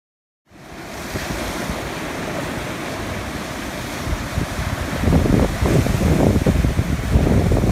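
Sea surf washing and breaking over a rocky shore, with wind buffeting the microphone. It fades in about half a second in and grows louder from about five seconds, with heavier wave surges.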